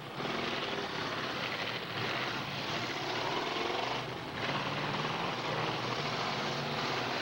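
Several demolition derby cars' engines revving hard and running loud and rough as they push and ram each other, a dense mechanical din with a brief dip about four seconds in.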